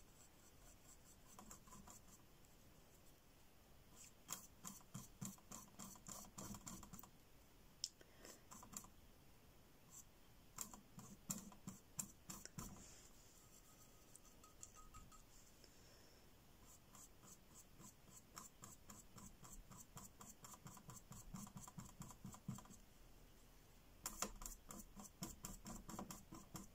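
Faint scratching of a paintbrush on the painting board in quick, short strokes. It comes in several spells of rapid strokes with short pauses between, and a lull a little past the middle.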